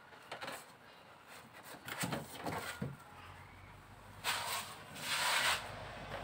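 Rustling and crinkling of a foil-faced heat-insulation sheet being handled, with soft scattered rustles early on and two louder stretches of crackling about four and five seconds in.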